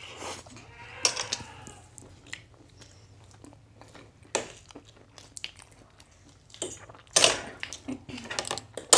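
Eating sounds: chewing and biting soft bread and semai (sweet vermicelli), with scattered short clicks and clinks of forks against plates. The loudest cluster comes about seven seconds in.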